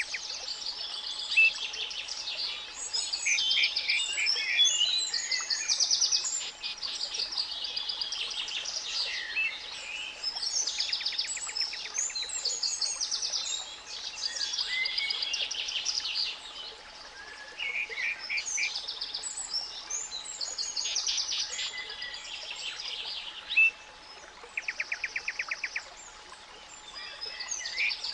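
A chorus of spring songbirds chirping and singing without pause, with several birds overlapping and some fast trills. Underneath runs a faint, steady 852 Hz pure tone.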